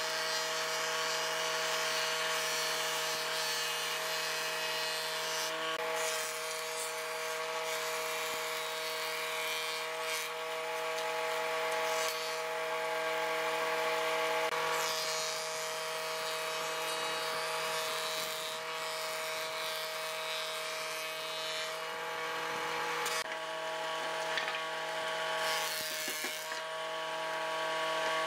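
Combination jointer-planer running with a steady hum from its motor and cutterhead. The cutting noise swells and eases every few seconds as wooden boards are passed over the blades.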